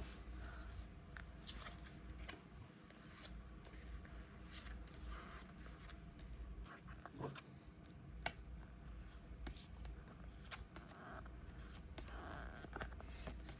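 Trading cards being handled and slid through by hand: faint, scattered rustles, scrapes and small clicks of card stock.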